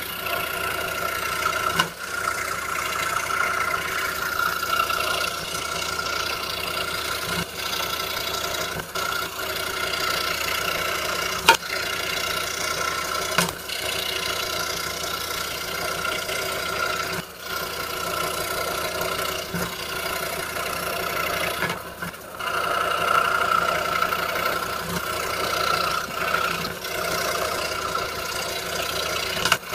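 26-inch RBI Hawk scroll saw running steadily with a 5-0 skip-tooth blade cutting Baltic birch plywood. The sound drops briefly a few times, and there is one sharp click about a third of the way through.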